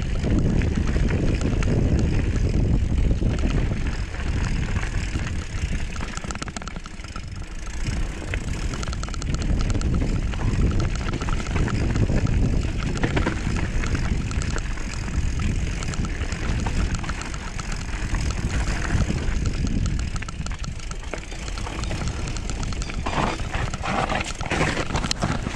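Wind rushing over the microphone and tyres rolling on a dirt trail during a mountain-bike descent: a loud, uneven low rumble with hiss above it.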